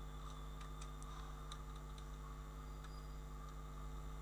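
Faint, scattered computer keyboard keystrokes over a steady electrical hum.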